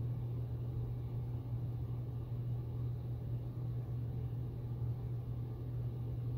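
A steady low hum with nothing else standing out above it.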